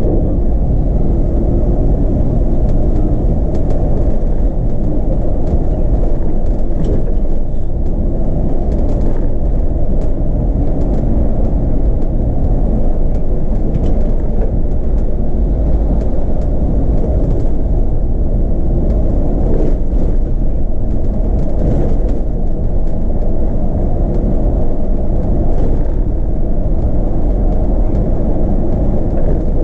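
Steady low rumble inside a Solaris Urbino 18 articulated city bus in service, heard from the driver's cab, with faint light rattles now and then.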